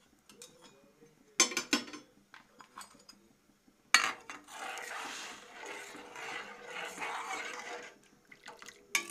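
A metal spoon clinking against a steel pot a few times, then stirring chicken pieces in water with a swishing, sloshing sound for about four seconds, and one more clink near the end.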